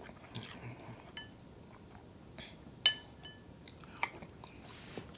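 Metal spoon clinking against a glass cereal bowl several times, the loudest strike about three seconds in with a brief ringing note, and faint chewing between.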